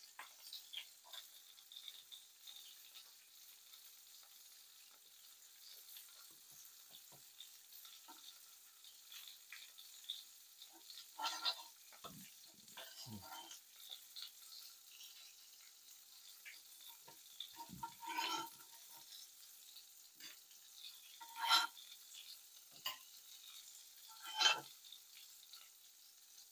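Pancakes frying in pans on the stove, a faint steady sizzle. A few sharper knocks and clinks of kitchenware come in clusters partway through, the loudest two near the end.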